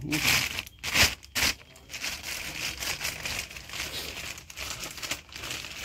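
Clear plastic bag crinkling and rustling as a steering knuckle is unwrapped from it by hand, with a cluster of sharper crackles about a second in.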